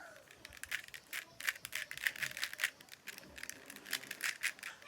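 Plastic Rubik's cube being turned by hand: quick, irregular clicks and rattles as its layers are twisted, several a second.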